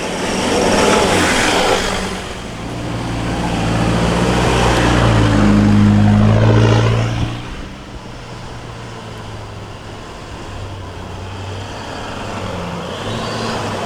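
Four-wheel-drive engine working hard as the vehicle pushes through a boggy track. It gets louder and pulls harder from a few seconds in, then eases off just past the middle.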